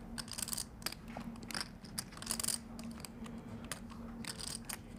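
Clay poker chips clicking together as a player handles them at the table: an irregular scatter of short, sharp clicks over a faint steady room hum.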